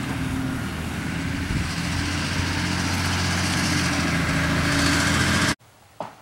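Large truck driving past on the street, its engine running with a steady low drone. The sound cuts off suddenly about five and a half seconds in.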